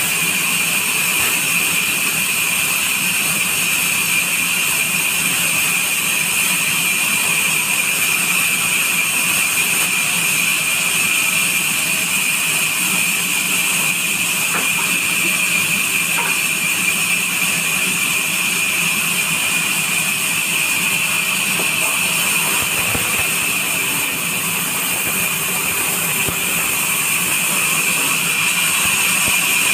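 Sawmill band saw running steadily as a neem plank is fed through its blade, with a continuous high-pitched whine over the noise of the cut.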